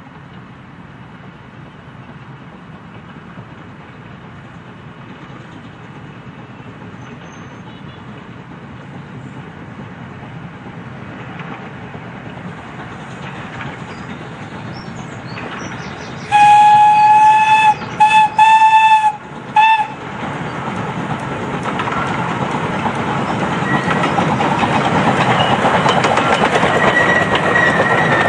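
Miniature steam locomotive approaching, its running noise growing steadily louder. About 16 seconds in it sounds its whistle in several blasts, the first the longest, then draws near with the clatter of wheels on rail, a thin high squeal coming in near the end.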